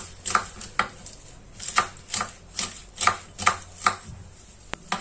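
Kitchen knife slicing lettuce thinly on a wooden cutting board: a run of short, crisp cuts about two to three a second, with one sharp tick near the end.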